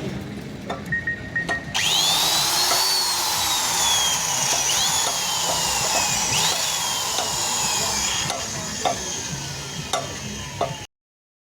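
Power drill boring into the metal of a motorcycle cylinder head, a high whine that keeps sinking in pitch as the bit bites and picks up again, with scattered clicks. It starts about two seconds in and stops abruptly near the end.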